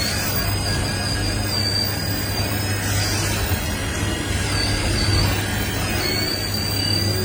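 Excavator working, a steady engine drone with a thin, high, wavering squeal running over it.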